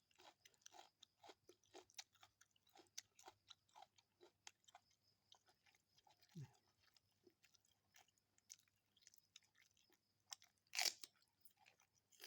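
Close-up chewing of food: a steady run of soft, short mouth clicks and crunches, with one louder crunch near the end.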